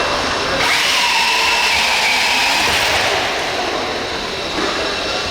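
Radio-controlled pulling truck or tractor's motors whining at high revs as it pulls the sled. The high whine comes in sharply about half a second in and eases off after about three seconds.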